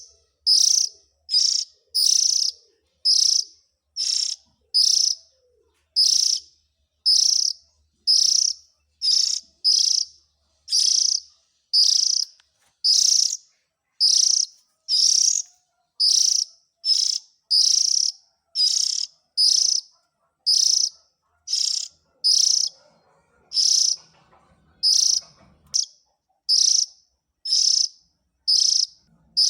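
Oriental magpie-robin (kacer) calling: short harsh chirps repeated evenly, a little more than one a second.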